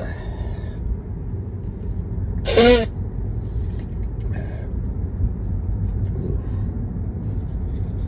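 Steady low rumble inside a car, with one short vocal burst about two and a half seconds in from a person with a heavy cold.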